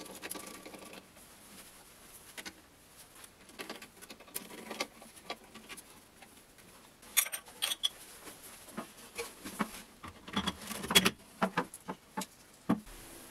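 Scattered small clicks, taps and knocks of a screwdriver and hands working the plastic toilet-seat fixing bolts and the bidet plate, with a soft thump near the end as the toilet lid is lowered.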